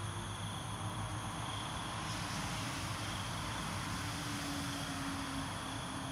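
Steady night-time background noise: a low hum and hiss with a faint, steady high-pitched tone, and a slightly stronger low drone from about four seconds in.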